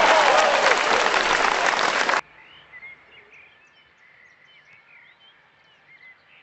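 Crowd cheering and applauding, cut off suddenly about two seconds in. Then quiet outdoor ambience with faint birds chirping.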